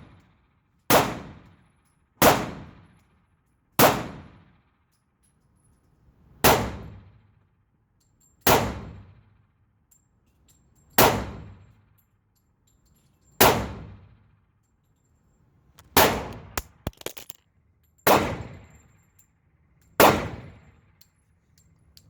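Pistol fired at a slow, steady pace, about ten single shots roughly two seconds apart, each with a long ringing echo. A few small clicks and clinks follow the shot about two-thirds of the way through.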